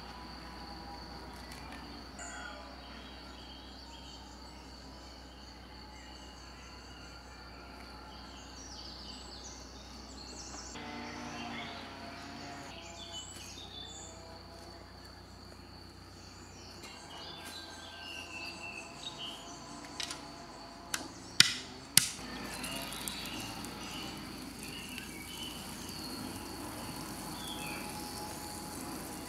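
Quiet outdoor ambience: scattered faint bird chirps over a steady, high insect-like tone, with a few sharp knocks about 20 to 22 seconds in.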